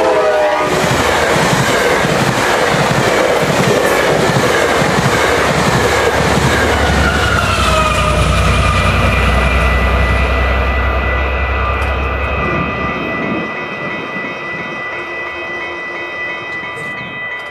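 A GO Transit bilevel passenger train passes close by at speed, with a rhythmic clatter of wheels over the rails. The tail of its horn drops in pitch in the first half-second. The train noise fades after about twelve seconds, leaving the level crossing's warning bell ringing steadily.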